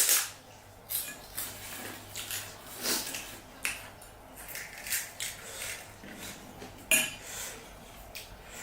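Dishes and cutlery clinking and knocking in short, irregular strokes while pani puri is eaten, with one sharper clink about seven seconds in.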